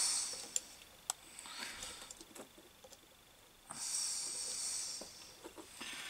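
Faint handling noise while a wire is pushed onto the earth terminal of a washing machine motor: a fleece sleeve rubbing close to the microphone, two light clicks about half a second apart near the start, then a soft hiss for about a second and a half past the middle.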